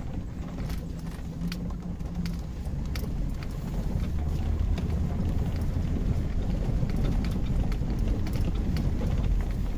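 A 2002 Chevy Suburban's V8 and tyres rumbling over a rough dirt trail, heard from inside the cab, with scattered knocks and rattles from the body. The rumble grows louder about four seconds in.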